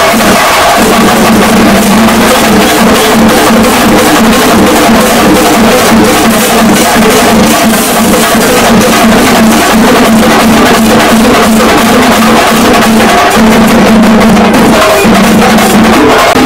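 Ensemble of Kerala chenda drums beaten fast and continuously with sticks, the strokes dense and loud, over a steady held tone.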